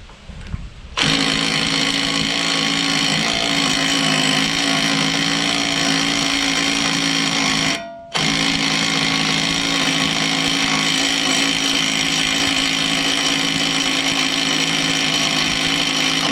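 Impact wrench hammering on the Mustang's rear axle nut in two long runs, with a short break about eight seconds in. This is the final tightening past the 92 ft-lb torque setting, with the nut turning only slightly further.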